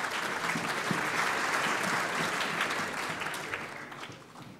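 A congregation applauding, the clapping dying away near the end.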